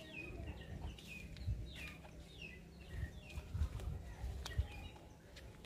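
Birds chirping: a string of short, falling chirps repeated every half second or so, with a few soft low thumps underneath.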